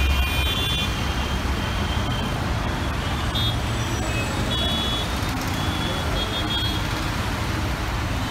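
Dense, slow city road traffic: a steady rumble of car, auto-rickshaw and motorbike engines and tyres. Short, high vehicle horn beeps sound several times over it.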